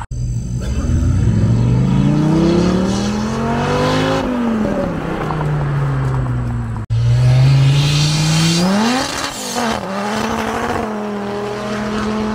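A high-performance car engine revving hard under acceleration: the engine note climbs steadily for about four seconds, then drops as the throttle comes off. After an abrupt cut about seven seconds in, another loud pull rises, dips, holds and falls away near the end.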